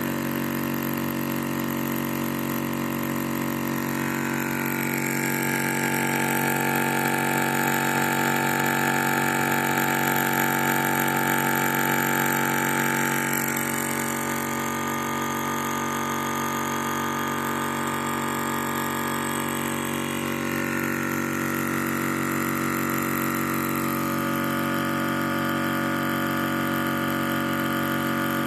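Yong Heng water-cooled high-pressure air compressor running steadily while it fills an air rifle's air reservoir; its higher tones shift a few times.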